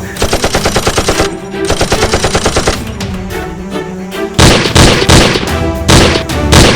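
Rapid machine-gun fire sound effects: two long bursts in the first three seconds, then several louder, heavier shots, over background music.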